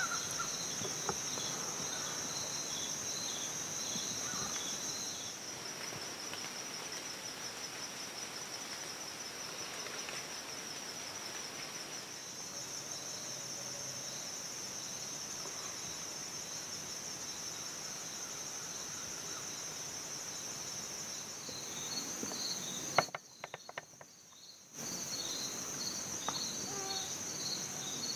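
Chorus of insects: a steady high trill, joined at the start and again near the end by a second, pulsing trill just below it. Near the end comes a sharp click, then about two seconds of near quiet before the chorus returns.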